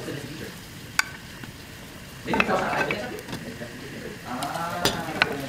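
Beaten egg sizzling in a hot rectangular egg roll pan while a rolled omelette is cooked, louder for about a second, two seconds in, as fresh egg meets the pan. A few sharp clicks of chopsticks against the pan.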